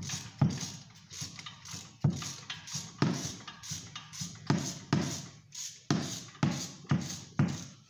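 Repeated sharp metallic clicks and clacks, about one or two a second, from hand-tool work on a car's front disc brake as the caliper assembly is taken off.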